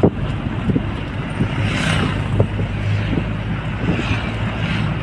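Steady engine hum and road noise from riding in a moving vehicle, with a passing motorcycle swelling briefly about four seconds in.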